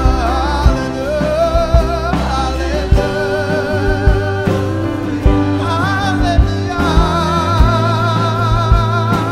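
Contemporary Christian worship music in an instrumental passage: a steady drum beat and held bass notes under a sustained, wavering melody line, with no sung words.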